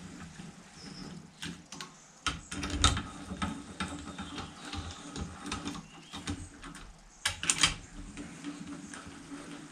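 Hand tools clicking and clinking against steel as bolts on a Fordson Major's cylinder head are worked by hand, in irregular sharp metal clicks with two louder clusters of knocks, about three seconds in and again near the end.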